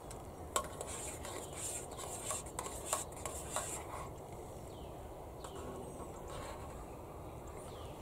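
A utensil stirring in a metal cooking pot of noodle soup, clinking against the pot several times in the first four seconds, then settling into quieter stirring.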